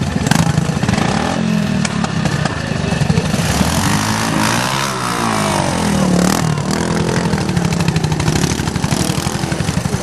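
Honda trials motorcycle engine running at low revs under throttle, with a rev that rises and falls back about halfway through.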